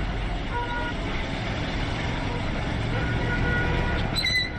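Busy street traffic: a motor scooter and cars running past in a steady rumble. Short high tones sound about half a second in and again around three seconds in, and a brief sharper high tone comes near the end.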